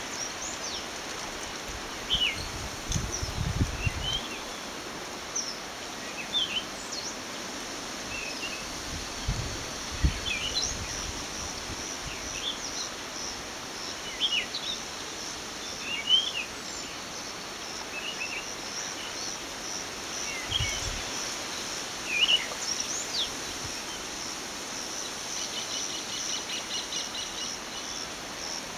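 Small birds chirping with many short calls, over a steady high insect buzz that pulses about twice a second. A few low thumps come in the first ten seconds and again later on.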